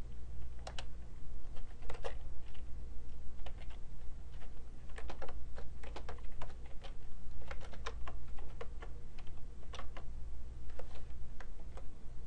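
Computer keyboard being typed on: single keystroke clicks at an irregular, unhurried pace, over a low steady hum.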